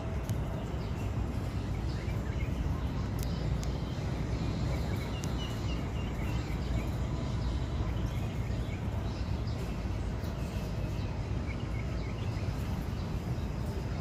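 Steady low background rumble of outdoor ambience. About five seconds in comes a quick run of faint, high bird-like chirps, and there are a few light clicks.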